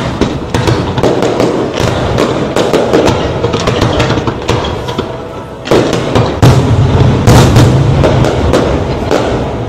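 Fireworks display: a dense run of bangs and crackles, growing louder a little past halfway, with a low rumble under the later bangs.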